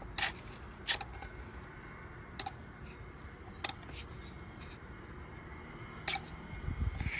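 Scattered light clicks and taps from small parts being handled, about seven in all at uneven intervals, over a steady low background noise.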